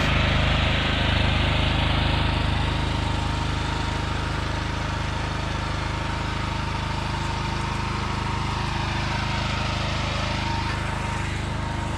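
Pressure washer engine running steadily, with the hiss of a high-pressure water jet over it.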